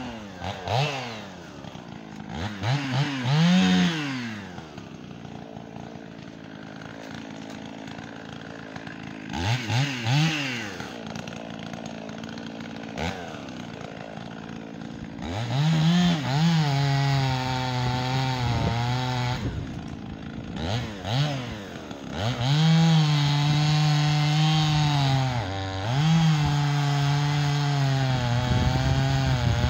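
Gas chainsaw revved in a few short blips from idle, then held at full throttle in two long spells while cutting through a log, dropping back briefly between them.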